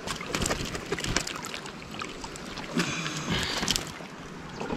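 Irregular clicks and rustles from a freshly caught fish and fishing line being handled, over a low outdoor rumble.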